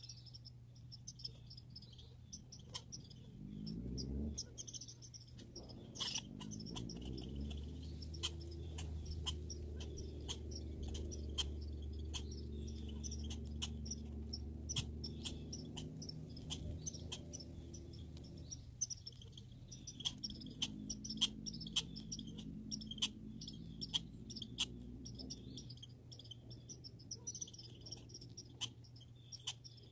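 Outdoor backyard ambience: high, repeated chirping calls with a scatter of sharp clicks. A low engine-like hum comes in about four seconds in, drops out briefly past the middle, returns, and fades well before the end.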